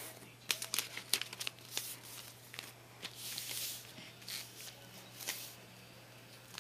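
Paper and tape being handled by hand: irregular crinkling and crackling of paper sheets with sharp ticks, and a longer rustling stretch a little past three seconds in.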